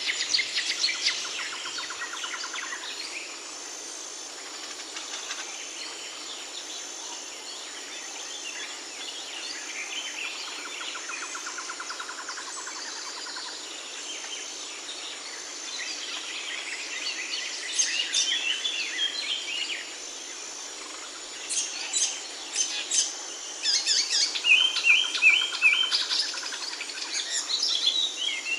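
Small birds chirping and singing: short high chirps and fast trills from several birds, sparse at first and becoming busy and loud in the last third.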